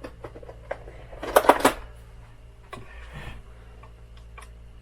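Small metal hand tools clinking and clattering on a workbench while the right one is picked out. Light scattered clicks, with a quick cluster of sharp clinks about a second and a half in.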